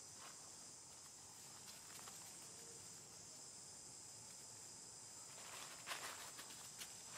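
Steady high-pitched buzz of insects. About six seconds in, dry leaves rustle and crackle under a monkey's footsteps.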